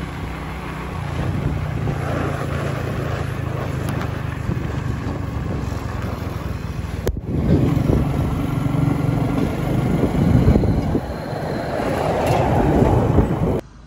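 Small Cub-type motorbike engine running steadily while riding, with wind noise on the microphone. Near the end a large container truck passes close by and the noise grows louder.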